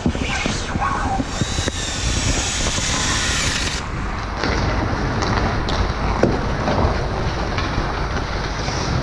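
Cordless drill whirring as it bores into rink ice for about two seconds, starting a couple of seconds in. After that come skate blades scraping the ice and a sharp knock about six seconds in, all over a steady low rumble.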